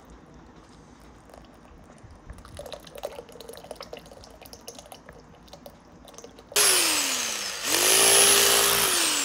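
Red corded electric hammer tool with a chisel bit, starting suddenly about two-thirds of the way in and running loudly in two runs. Its motor pitch falls away after the first run, climbs back to a steady speed, and sinks again near the end. Before it there is only a faint background with a few small clicks.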